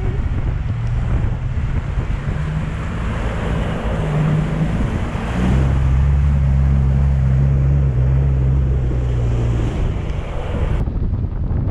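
Lifted Nissan Patrol superjeep wading through a river: water rushing and spraying against the body and wheels over the engine, with wind buffeting the microphone. The engine pulls harder a few seconds in and holds a steady, louder drone for about five seconds; near the end the splashing cuts off abruptly.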